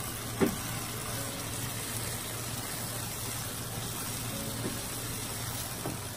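Chicken in sambal gravy simmering and sizzling in a frying pan as it is stirred with a wooden spoon, cooking down to thicken the gravy, over a steady low hum. A sharp knock sounds about half a second in.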